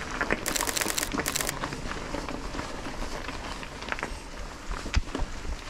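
Mountain bike being ridden over a rough trail: steady tyre and trail noise with scattered knocks and rattles, and two short bursts of rapid high ticking about half a second and a second in.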